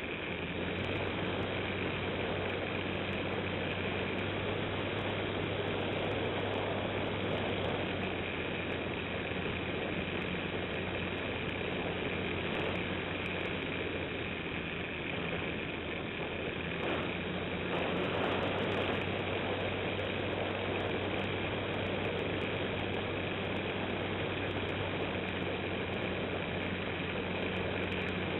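Radio-controlled model airplane's motor and propeller running steadily in flight, heard from an onboard camera with air rushing past its microphone. A steady hum with a higher steady whine over it, swelling briefly a little over halfway through.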